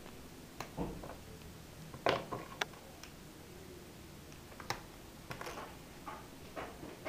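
A few separate light clicks and taps of a laptop RAM module being handled and pushed into its slot in the laptop's memory bay, the sharpest pair about two seconds in.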